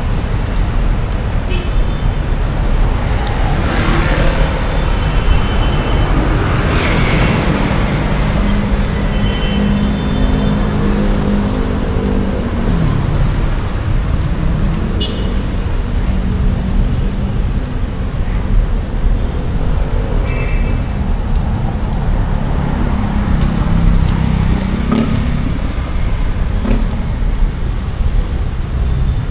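City street traffic: a steady rumble of vehicle engines, with vehicles passing close by now and then.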